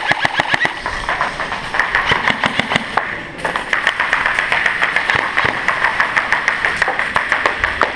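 Airsoft guns firing on full auto: a fast, near-continuous rattle of shots with a brief pause about three seconds in.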